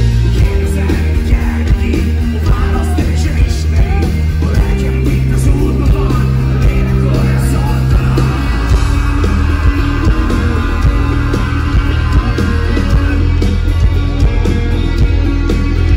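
Live rock band playing loudly, with a heavy low end: a man sings into a microphone over keyboards and a full band mix.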